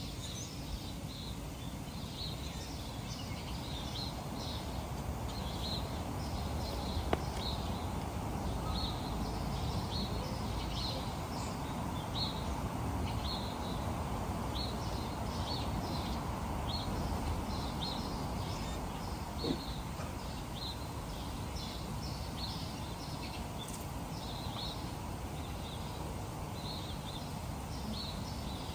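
Small bird chirping over and over, short high chirps one or two a second, over a steady low outdoor background noise, with a sharp click about seven seconds in.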